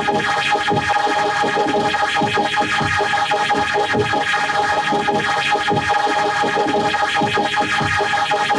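Heavily effects-processed, distorted music with held tones over a steady repeating beat.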